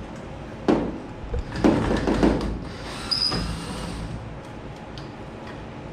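Hand-tool work on the vent window screws of a 1973 Ford F100 door: a knock, then a run of scraping and knocking, and a short high squeak about three seconds in.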